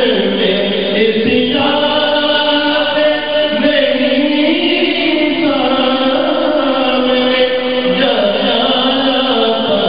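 A man reciting an Urdu naat, a devotional song in praise of the Prophet, in long held, gliding melodic lines without instruments.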